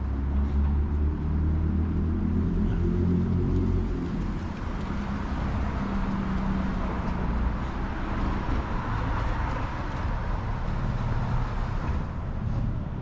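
City street traffic: a vehicle's engine running close by for the first four seconds or so, then a steady hiss of passing cars.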